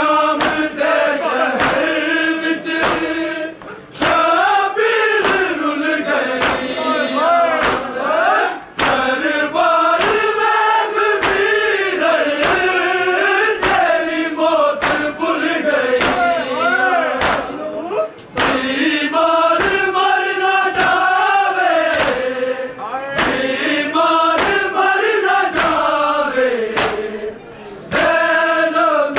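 Men's voices chanting a noha (Shia mourning lament) together, the melody rising and falling in long sung phrases. It is crossed by a steady beat of sharp slaps, typical of chest-beating (matam) kept in time with the lament, with short breaks between verses.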